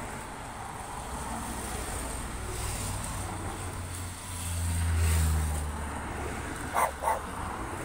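A motorcycle passing close by on the road, its engine swelling and fading, loudest about five seconds in. A dog barks twice near the end.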